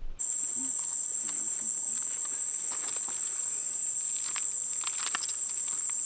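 A forest insect calling: a loud, unbroken, high-pitched whine that cuts in abruptly. Light ticks and rustles of movement on leaf litter come through underneath.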